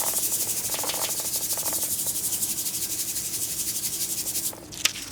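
A hand rubbing quickly back and forth over paper, pressing a freshly glued paper cut-out flat, in a fast even scratchy rhythm. The rubbing stops about four and a half seconds in, and a single light click follows.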